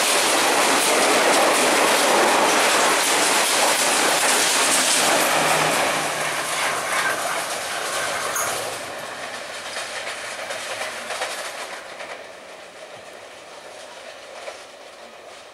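Passenger train's carriages rushing past on the rails, wheels clattering over the rail joints, then fading away steadily from about six seconds in as the train recedes into the distance.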